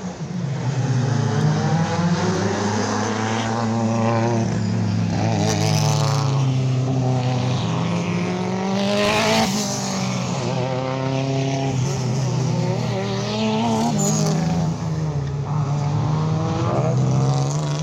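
Racing car engine revving hard around a circuit, its pitch repeatedly climbing under acceleration and dropping at gear changes and lifts.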